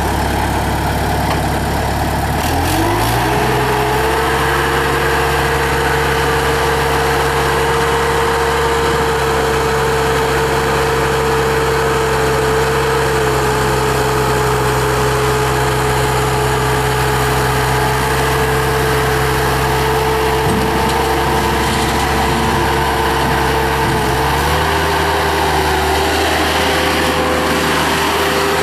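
Bobcat 863G skid steer's 73 hp Deutz oil-cooled turbocharged diesel running just after being started. Its revs climb about three seconds in, hold steady, then rise slightly again near the end.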